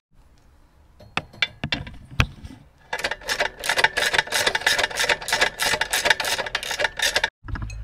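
Ratchet wrench clicking rapidly as a socket spins a nut onto a motorcycle crash-bar bolt, after a few separate metal clicks; the ratcheting stops suddenly near the end.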